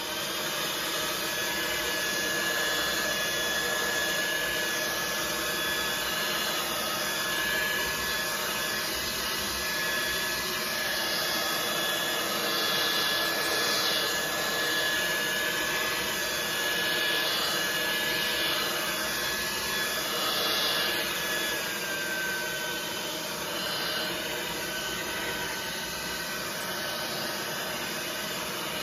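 Handheld hair dryer blowing steadily: a continuous rush of air over a steady motor whine, which dips slightly in pitch about 21 seconds in.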